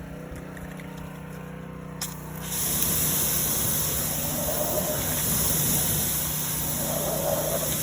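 Pressure washer running with a steady hum, then about two and a half seconds in water starts spraying hard from the nozzles of a homemade undercarriage washer, a loud steady hiss that holds on.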